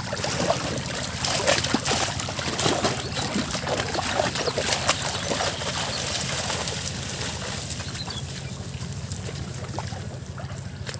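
Water splashing and streaming off a fishing net full of weeds as it is hauled out of shallow pond water, with splashes of wading feet. The crackling splashes are densest in the first half and thin out after about six seconds.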